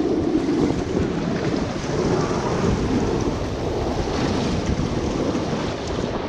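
Steady, loud rushing noise of water on a water slide, with wind buffeting the microphone and giving a low rumble.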